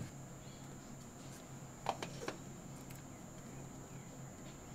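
Faint light clicks of steel tweezers handling a tiny watch part: one at the start and three close together about two seconds in, over a steady low hum.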